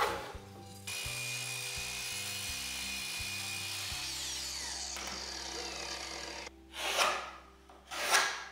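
A sliding miter saw runs and crosscuts a pine board: a steady noisy run with a constant tone that starts about a second in and stops around six and a half seconds in. It opens with a sharp knock and is followed by two short rubbing scrapes on the wood.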